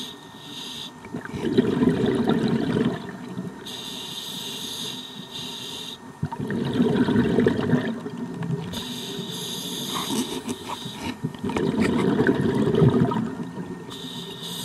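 Scuba regulator breathing underwater: a hissing inhale through the demand valve, then a longer burst of exhaled bubbles rumbling past, repeating about every five seconds, three breaths in all.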